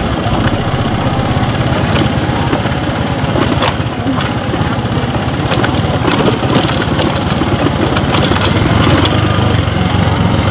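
Yamaha motorcycle engine running steadily at low speed over a rough, stony dirt track, with scattered clicks and knocks throughout.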